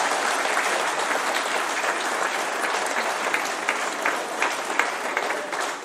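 Audience applauding: many hands clapping together in a steady clatter that thins out near the end.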